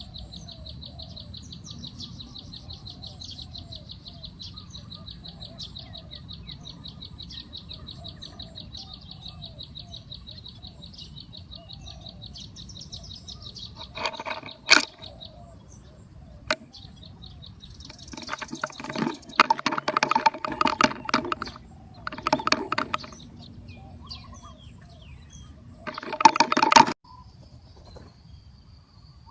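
Spotted doves cooing faintly over a rapid, high-pitched insect trill that fades out about halfway through. In the second half come several loud, rough bursts, the loudest near the end.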